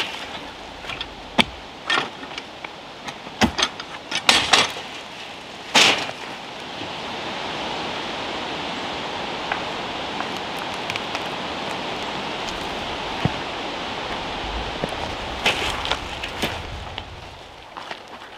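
Carrots being pulled by hand from a garden bed: rustling of the leafy tops with sharp snaps and knocks, busiest in the first six seconds. After that comes a steady hiss with a few scattered clicks.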